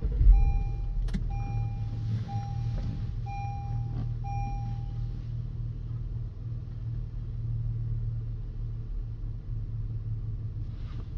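Car engine starting and then idling with a steady low rumble. A chime beeps about once a second for the first five seconds.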